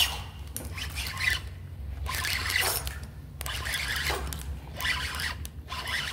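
Irregular scraping and rubbing handling noises, several short bursts, over a steady low hum.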